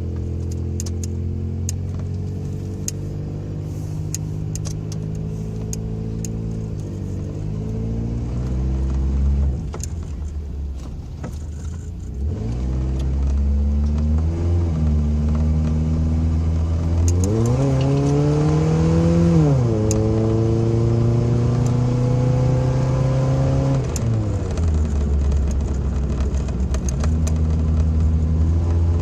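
Toyota truck's engine and exhaust while driving: the engine note climbs under acceleration and drops back at gear changes several times, then holds steady for a few seconds before falling away. The leaking exhaust header is temporarily patched with exhaust wrap.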